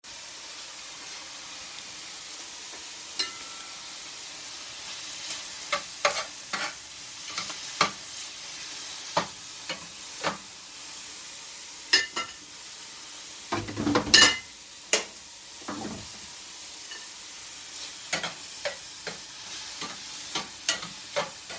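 Sausage, corn and tomatoes sizzling steadily in a frying pan, while tongs stirring the food clack and scrape against the pan in scattered sharp clicks. The clicks are loudest in a cluster about fourteen seconds in.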